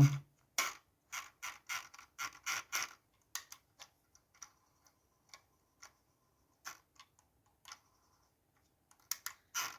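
Sharp plastic clicks of a Logitech G502 Hero gaming mouse's buttons being pressed, about three a second at first, then only a few, then a quick cluster near the end.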